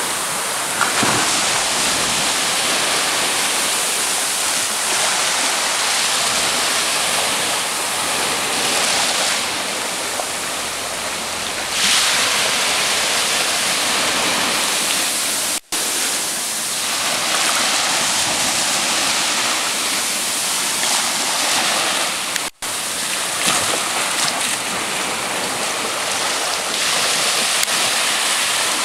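Steady rush of sea waves breaking and washing up on the shore, swelling and easing, with two very brief dropouts in the recording.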